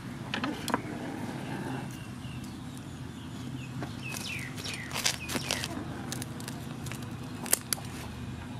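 Kitchen scissors cutting through a crusty baguette: a run of sharp clicks and crackles about four to five and a half seconds in and a sharp snip near the end, with a few handling knocks of the bread early on. Birds chirp faintly in the background.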